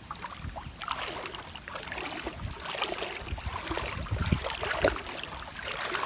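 Water splashing and sloshing, with irregular knocks and low thumps.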